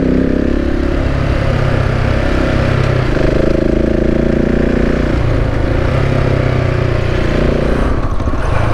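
KTM 690's single-cylinder engine running as the motorcycle rides along, its speed rising and falling several times, over a rush of wind noise.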